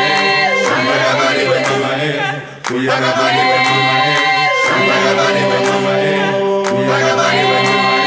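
Group of voices singing a repeated chant-like song a cappella, holding long notes, with a brief break between phrases about two and a half seconds in.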